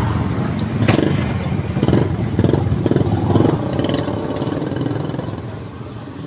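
A motorbike engine running close by in street traffic, loudest in the first few seconds and then fading away, with a sharp knock about a second in.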